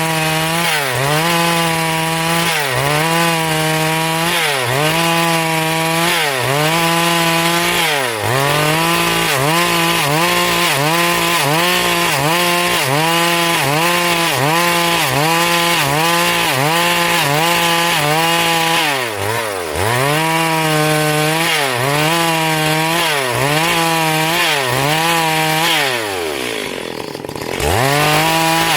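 Stihl MS382 two-stroke chainsaw running at high revs while ripping along a log, its engine pitch dipping and recovering in a steady rhythm about once or twice a second as the chain loads up in the cut. Near the end the engine drops briefly toward idle, then revs back up.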